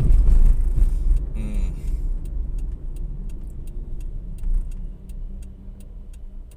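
Inside a moving car: low engine and road rumble dying down, with a short burst of noise about a second and a half in. Then, from about two seconds in, the turn-signal indicator clicks steadily at about three clicks a second.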